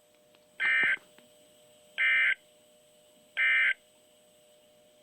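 Three short bursts of EAS/SAME digital data tones, each a harsh electronic buzz about a third of a second long, spaced about a second and a half apart. This is the End of Message signal that closes a NOAA Weather Radio emergency alert.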